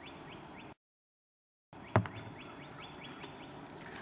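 A small bird repeating a short chirp about three times a second over outdoor ambience. The sound cuts out completely for about a second, then comes back with a sharp knock. A few higher whistled notes follow near the end.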